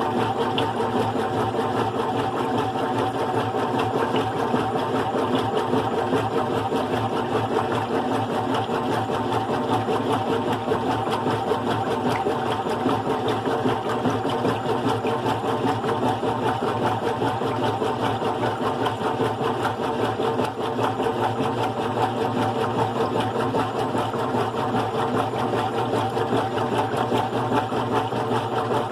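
GE Profile top-load washing machine running on its single-speed motor, a steady mechanical hum and whir with a fast, even chatter that does not let up.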